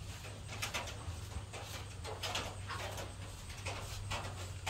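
A brush swishing over a cow's hair coat in short, uneven strokes, about two a second, over a steady low hum.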